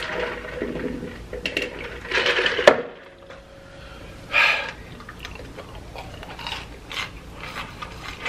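Small clicks and soft rustles of fried food being handled on a metal serving tray, close to the microphone. There are a few louder noisy bursts, one ending in a sharp click about two and a half seconds in.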